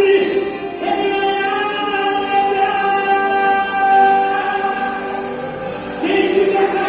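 Portuguese-language gospel song: several voices sing long held notes together over backing music, the loudest note about four seconds in.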